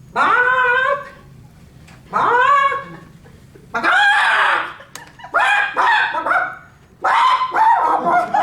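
A person imitating a chicken: a string of loud squawking calls, each about a second long and rising in pitch at the start. The calls become more crowded and overlapping toward the end.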